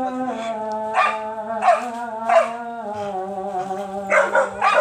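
Young dog barking: a few sharp barks about a second apart, then a quicker run of barks near the end, over a steady droning background tone.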